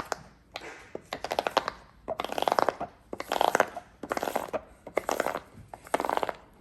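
Silicone pop-it fidget toy being popped by hand: about six quick runs of small snapping pops, roughly one run a second.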